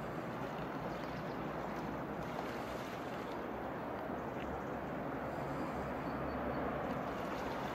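Steady rush of flowing river water mixed with a low wind rumble on the microphone, with no distinct splashes or calls standing out.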